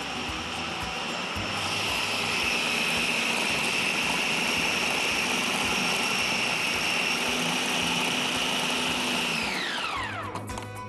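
Countertop food processor running at speed, blending soaked bulgur, onion, mint and ice water into smooth kibbeh dough, with a steady high whine. Near the end it is switched off and the whine falls in pitch as the motor spins down, followed by a few light knocks.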